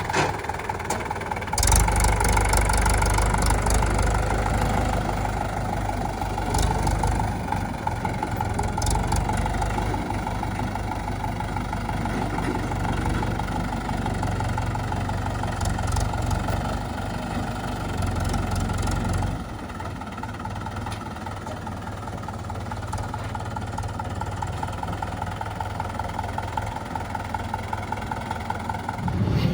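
Diesel engine of a JCB 3DX backhoe loader running while it works, at higher revs with a heavy low rumble until about 19 seconds in, then settling to a lower, steadier run. A few sharp knocks come through along the way.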